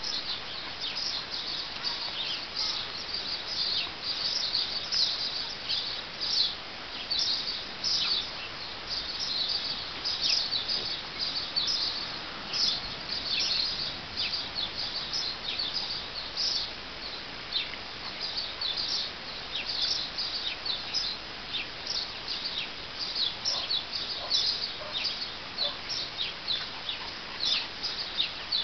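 Small birds chirping continuously, many short high chirps a second over a steady outdoor hiss.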